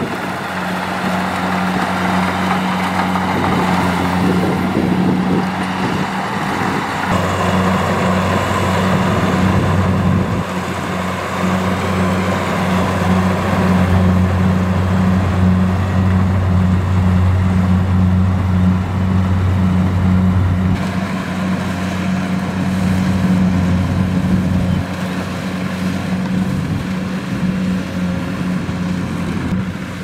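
Kubota DC-70 rice combine harvester working in the field: its diesel engine running steadily under load with a deep hum, over the rattle and rush of the cutting and threshing machinery.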